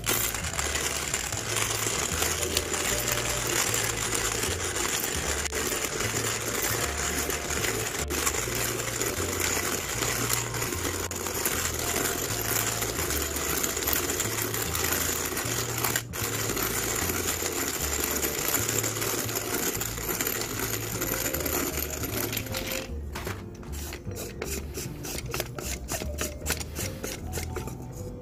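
Hand-cranked manual burr coffee grinder crushing roasted coffee beans: a steady, dense crunching as the crank turns. Near the end the crunching thins out into separate ticks.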